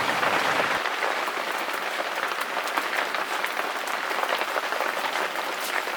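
Heavy hailstorm: many hailstones striking at once, a dense, even rattle of countless small hits.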